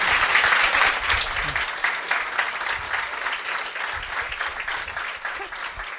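Audience applauding, the clapping dying away over the few seconds.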